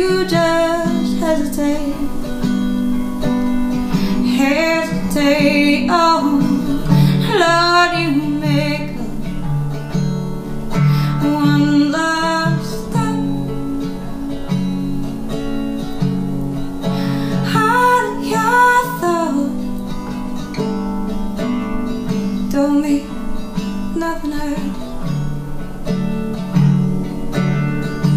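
A woman singing in phrases over a strummed resonator guitar, the guitar running steadily beneath her voice.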